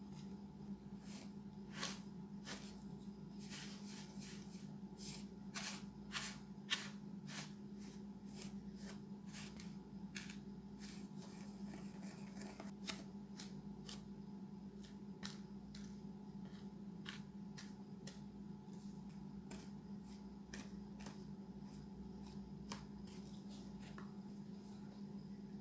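Short clicks and rustles of food preparation, several a second at first and sparser later, over a steady low hum.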